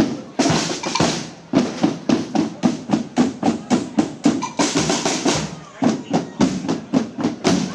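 Procession drums beating a steady march rhythm, about four strokes a second, with two short bursts of hissing noise over them, about half a second in and about five seconds in.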